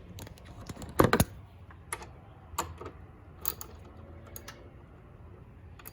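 Sharp metallic clicks and clinks of hand tools being handled, a 9 mm socket and ratchet from a cheap socket set, with the loudest double clack about a second in and a few lighter clicks after it.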